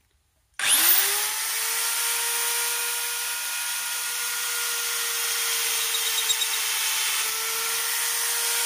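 Bench drill press switched on about half a second in, its motor quickly spinning up to a steady whine with a strong hiss, as the bit drills into a metal plate clamped in the drill vise.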